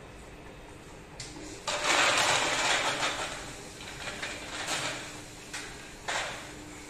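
Automatic bottle labeling machine with its rotary feeding turntable running: a steady motor hum. About two seconds in comes a loud burst of mechanical noise lasting about two seconds, followed by shorter bursts that each die away quickly.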